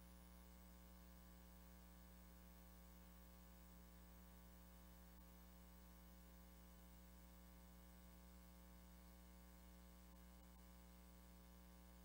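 Near silence: a faint, steady hum and hiss.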